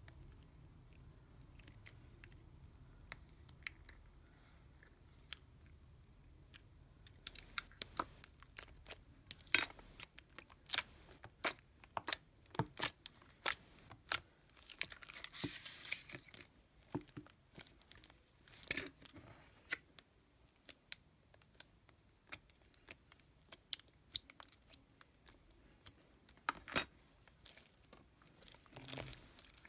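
Lego slime being squeezed and stretched by hand, giving sharp clicks, crackles and crunches. It starts quietly and turns to dense crackling about seven seconds in, with a short hissing squish near the middle.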